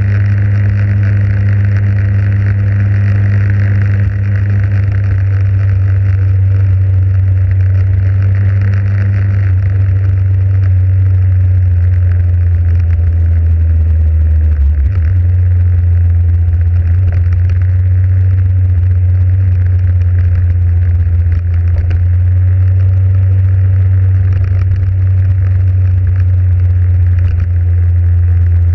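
Motorcycle engine running steadily while riding along a road, with wind and tyre noise over it; the engine note changes briefly about halfway through.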